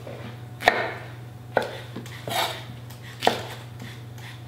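Chef's knife cutting through baby scarlet turnip stems and striking the cutting board: three sharp knocks roughly a second apart, with a softer sound between the second and third.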